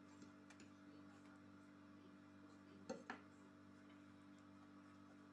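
Near silence: room tone with a steady low hum, and two faint light clicks close together about three seconds in.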